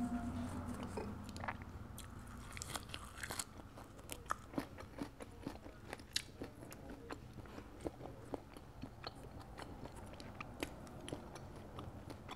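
Close-miked chewing of a mouthful of balut duck embryo, with soft, irregular wet clicks and small crunches from the mouth.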